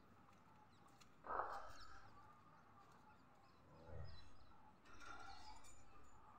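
Mostly quiet, with a short animal call about a second in and faint bird chirps in the background later on.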